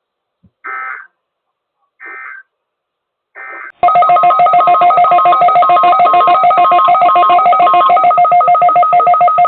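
Three short bursts of SAME digital data tones, the end-of-message code that closes a NOAA Weather Radio broadcast. About four seconds in, a loud electronic alarm tone starts and pulses rapidly, several beeps a second.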